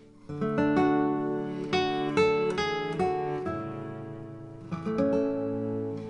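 Background music on acoustic guitar: plucked notes and strummed chords ringing out, starting up again a moment in after a brief lull.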